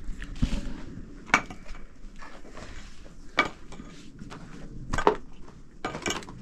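Pots, dishes and utensils clattering during cooking: separate sharp knocks and clinks a second or two apart, with a short cluster of them near the end.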